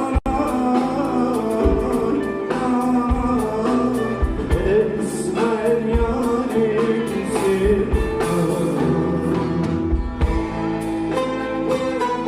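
Turkish folk song performed live: singing over plucked string instruments, with a very brief dropout in the audio just after the start.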